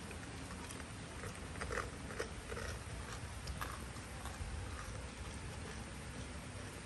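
Baby monkeys scuffling in a wire cage, with a few short squeaks and scrapes bunched together around two seconds in, over a steady low background noise.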